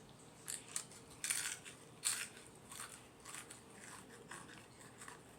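Potato chips crunching as they are bitten and chewed: short, sharp crackles at uneven intervals, some in quick clusters.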